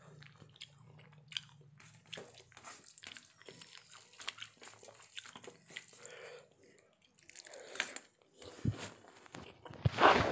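Eating by hand from a steel plate: close chewing, with many small clicks as fingers gather cooked rice across the metal, and a louder scrape near the end.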